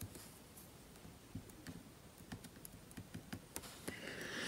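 Faint, irregular small clicks and taps of fingers and tweezers working at the connectors and parts inside an opened Sony Xperia tablet.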